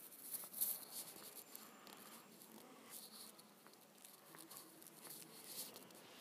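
Faint, scattered rustling and soft ticks from a handheld phone being carried while walking, in a quiet church.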